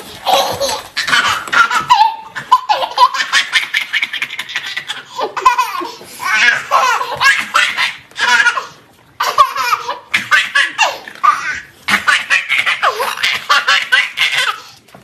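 A baby laughing in repeated fits of high-pitched giggles and belly laughs, with short pauses for breath between them.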